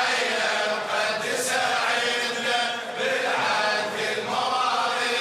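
A crowd of men chanting the refrain of an Iraqi Shia latmiya poem in unison with the reciter, many voices on a repeated melodic line.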